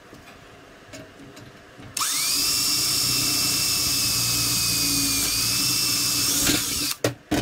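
Cordless drill boring a rivet hole through the chrome-plated sheet-metal tin of a VW Beetle fan shroud: about two seconds in the motor spins up with a quick rising whine, runs steadily for about five seconds, then stops, followed by a couple of sharp clicks.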